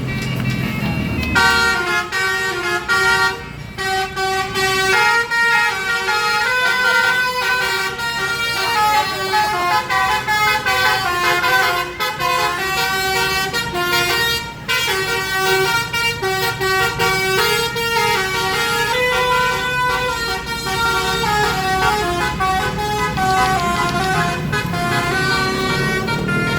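Basuri telolet bus horn, a multi-trumpet air horn, playing a tune of stepped notes sounded together like chords, starting about a second in over a low engine rumble.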